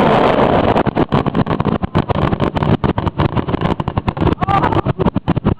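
Fireworks going off in a rapid barrage of bangs and crackles, many per second, loudest in the first second.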